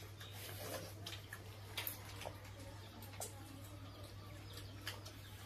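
Quiet mealtime sounds: a few soft clicks of fingers and food against steel plates and bowls, heard three or four times over a steady low hum.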